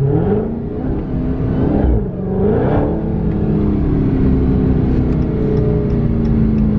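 Car engine pulling under acceleration while driving: its pitch climbs at the start, drops and climbs again about two seconds in, then settles into a steady cruise.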